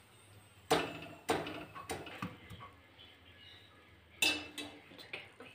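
Stainless-steel kitchenware clinking and knocking: a wire-mesh strainer of fried amla striking the steel kadai and plate. There are a handful of separate strikes in two groups, some ringing briefly.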